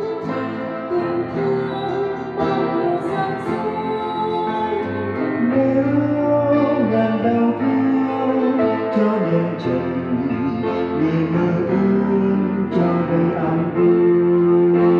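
Church choir of men and women singing a hymn together with instrumental accompaniment, in long held notes that grow louder about five seconds in.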